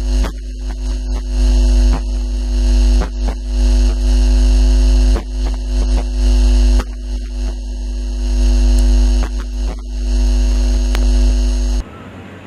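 Loud electrical hum and buzz: a steady stack of tones over a deep rumble and hiss, broken by brief dropouts. It cuts off suddenly near the end, leaving a much quieter hum.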